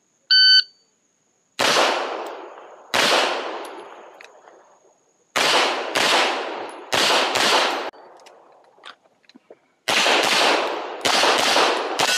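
A shot timer's short electronic start beep, then a handgun firing a string of sharp shots, singly and in quick pairs, each with a ringing tail. After a gap of about two seconds, a fast run of shots closes the window.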